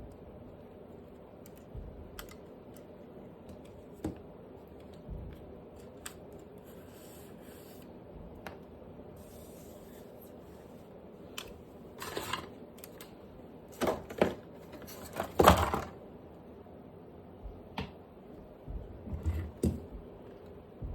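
Scattered clicks, taps and rustles of packaging and parts being handled during an unboxing. The loudest, scraping rustles come in a cluster about 12 to 16 seconds in.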